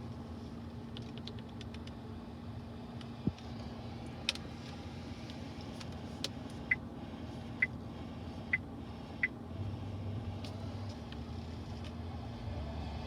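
Four short high beeps from the car's infotainment touchscreen as it is tapped, a second or less apart, between a few soft clicks, over a steady low hum in the cabin.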